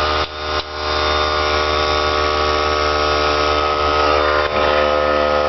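Campbell Hausfeld oilless air compressor running with a steady hum, pumping up its tank; the sound dips twice just after the start, then runs evenly.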